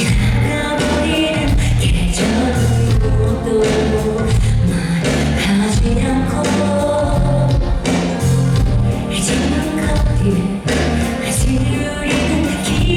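Pop song performed live in concert: a woman singing the lead over a band with heavy bass and a steady beat.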